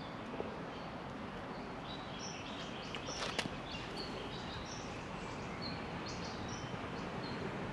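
Steady outdoor background noise with small birds chirping in short, high notes through the middle and latter part. A couple of faint clicks come about three seconds in.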